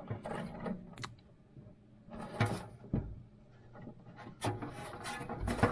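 Front-panel USB header cable being fitted onto a motherboard inside a PC case: several small plastic clicks and knocks with some rubbing of cables.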